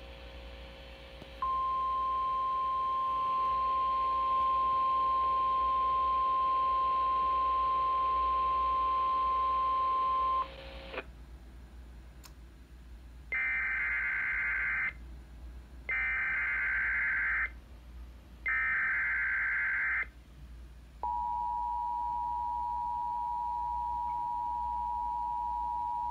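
Emergency Alert System tones for a tornado watch. A steady NOAA Weather Radio alert tone sounds for about nine seconds. After a short gap come three harsh data bursts of the SAME header, each about a second and a half long, and then the EAS two-tone attention signal begins about 21 seconds in and holds steady.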